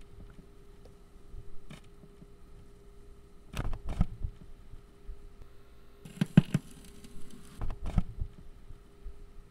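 Clicks and knocks as a hand works the knobs and buttons of an old cassette stereo, in three short clusters, the loudest about six seconds in along with a brief hiss. A steady low hum runs underneath.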